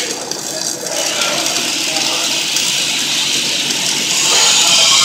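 Stick-welding (SMAW) arc on DC at about 120 amps, crackling and hissing steadily as a bead is laid. It gets louder about four seconds in.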